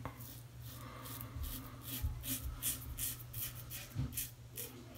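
Double-edge safety razor scraping stubble through shaving lather in short strokes, about three a second.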